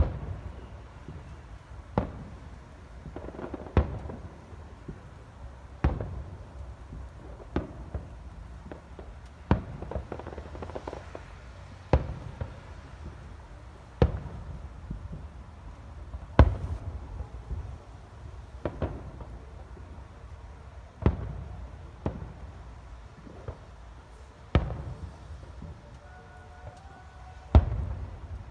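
Aerial firework shells bursting with a sharp boom about every two seconds, each boom trailing off in a low rumble. The loudest bursts come a little past halfway and near the end.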